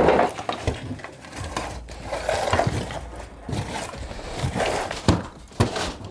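Irregular knocking, scraping and clattering of hand demolition work, with a few sharp impacts near the end.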